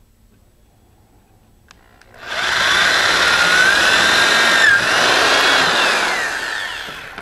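Electric drill boring through a fiberglass centering ring held in a vise. It starts about two seconds in with a loud whine that rises, dips briefly midway, then fades as the bit finishes the hole.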